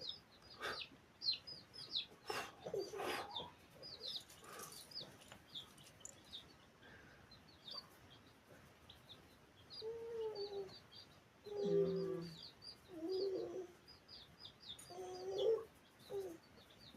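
Chicks peeping in quick, short, high chirps, with a hen clucking several times in the second half.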